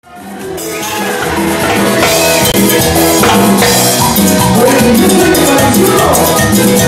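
A live band playing Latin music, with a drum kit and crashing cymbals at the front of the sound. The music fades in from silence over the first second or two, then carries on at full volume with a steady beat.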